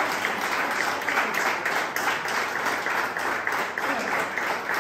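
A small crowd applauding, steady dense clapping throughout.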